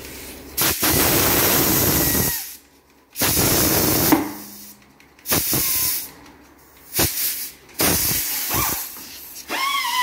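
Compressed air hissing in repeated bursts of about one to two seconds, with short pauses between, as a new car tyre is inflated through its valve stem with an air hose chuck. Music starts near the end.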